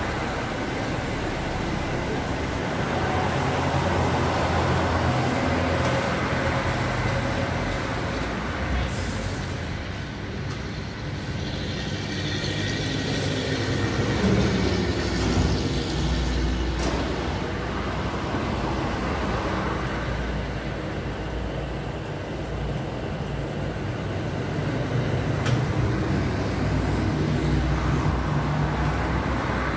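Street traffic: vehicle engines rumbling past, swelling and fading, with a truck going by near the end.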